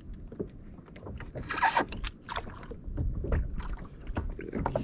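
Water splashing and small knocks around a fishing kayak, with a louder splash about a second and a half in.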